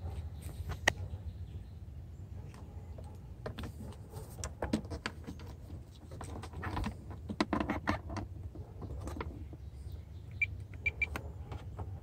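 Handling noise and footsteps: scattered clicks, knocks and rustles from a hand-held phone carried alongside a truck, over a steady low hum, with a few short high chirps near the end.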